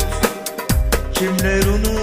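Instrumental passage of a Turkish pop song played on a Yamaha PSR-OR700 oriental arranger keyboard. A steady drum beat and deep bass sit under a lead melody that slides between notes.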